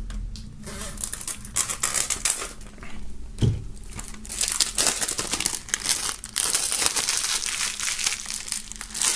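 Plastic shrink-wrap being pulled off a CD jewel case and crumpled in the hand: dense crinkling and crackling throughout, with a brief low knock about three and a half seconds in.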